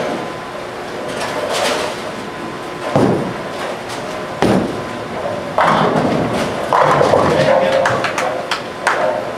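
Bowling alley sound with background chatter: a heavy thud about four and a half seconds in as a bowling ball is released onto the lane, then a loud clatter of pins a couple of seconds later.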